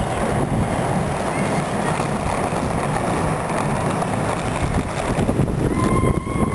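Inline skate wheels rolling over a concrete parking deck, a steady rolling noise mixed with wind buffeting the microphone. A faint high whine comes in near the end.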